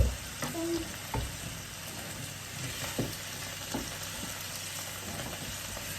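Chicken strips sizzling in hot olive oil in a frying pan, with a few sharp clicks of a utensil against the pan as the pieces are pushed about in the oil.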